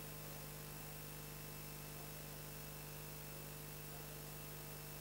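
Faint steady mains hum with hiss, the background of an old videotape recording; no other sound.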